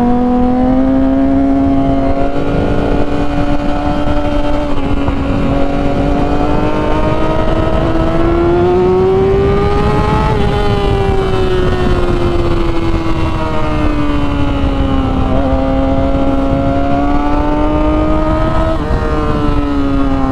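Motorcycle engine running under way at steady revs, heard from the rider's bike over wind rush. Its note climbs slowly over the first half, eases back, climbs again and drops near the end.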